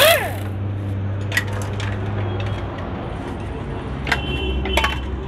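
Handheld power wrench run in one short burst on a 10 mm cylinder-head cover bolt of a scooter engine, followed by a few sharp metallic clinks of loosened bolts and tools against the engine casing.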